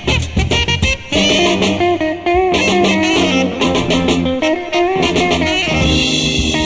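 Instrumental soul record playing, with an electric guitar line over bass and drums; the texture shifts to held chords near the end.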